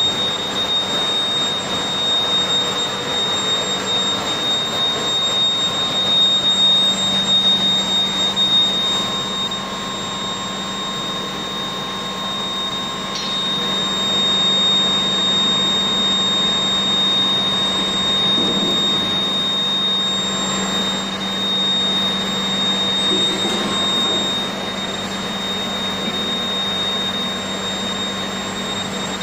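Induction melting furnace and horizontal continuous casting machine running: a steady machine hum with a constant high-pitched whine over it.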